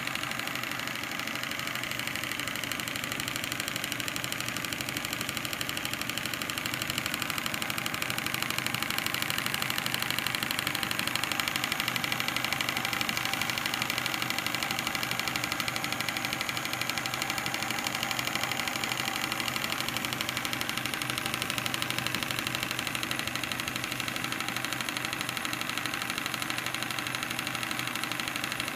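Stuart 10H single-cylinder model steam engine running steadily under steam, driving a small dynamo: a fast, even beat over a constant hiss.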